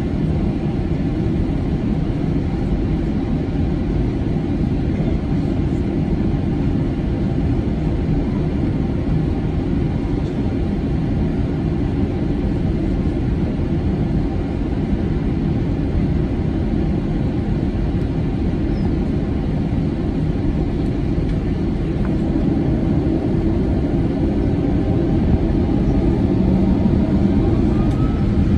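Steady cabin rumble of an Airbus A320 taxiing on its jet engines at idle, heard from inside the cabin. It grows a little louder near the end.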